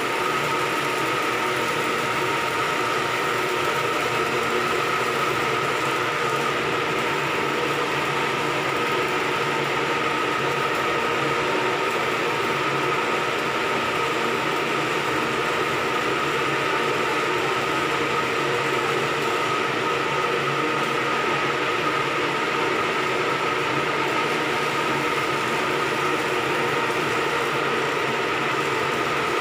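Ship's engine-room machinery running steadily: a constant loud mechanical din with a steady high whine over it.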